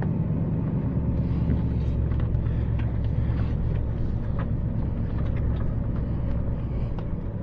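Motor vehicle engine running steadily at low speed, a constant low hum, with scattered faint clicks over it.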